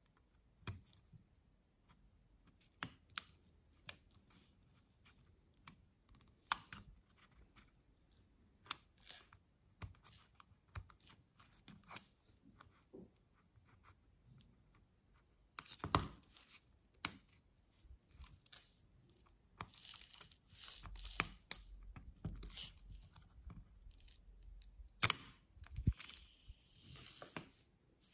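A plastic pry tool scraping and clicking under the Enter keycap of an Apple Magic Keyboard as it slides around the keycap's metal bar and works the clips free. Scattered small sharp clicks and short scrapes, sparse at first and busier in the second half, with a few louder snaps.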